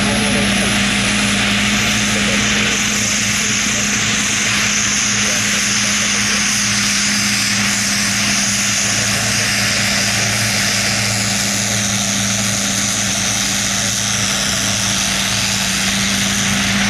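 Honeywell TPE331-12 turboprop engine of a converted Antonov An-2 biplane running steadily while the plane taxis. It gives a constant low propeller drone with a high-pitched turbine whine above it.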